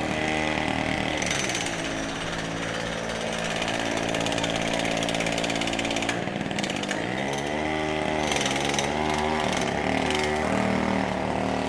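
Street traffic: vehicle engines running and revving, their pitch rising and falling as they speed up and slow down, over a steady wash of traffic noise. A strong engine rise comes a little past the middle.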